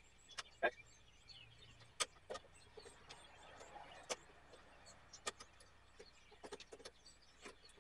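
Faint, scattered light clicks and knocks from things being handled and moved about, about a dozen spread irregularly, with a soft rustle around the middle.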